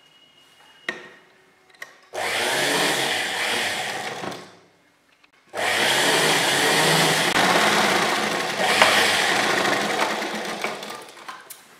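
Sewing machine stitching a seam in two runs: a short run about two seconds in, a brief stop, then a longer run of about six seconds.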